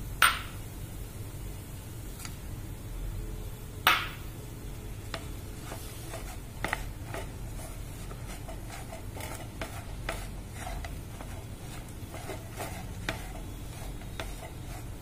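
Wooden spatula stirring and scraping a coarse mix of date paste and ground almonds and cashews in a pan, with many small scrapes and ticks and two sharper knocks, about a quarter second in and again about four seconds in.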